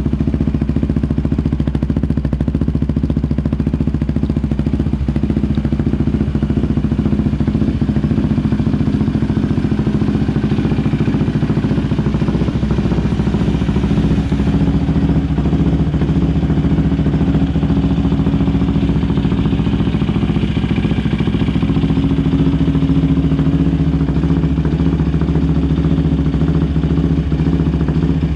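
Yamaha Raptor 700's single-cylinder engine running through an Alba Racing full exhaust system, a steady, even exhaust note with a slight shift in pitch about halfway through.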